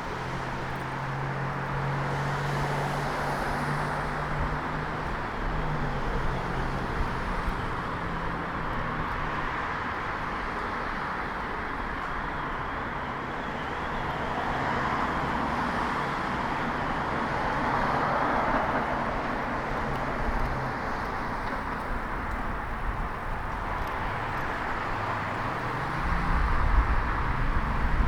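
Urban road traffic heard from a bicycle: a steady wash of car tyre and engine noise, with a low engine hum in the first few seconds, vehicles swelling past around the middle, and a louder low rumble near the end.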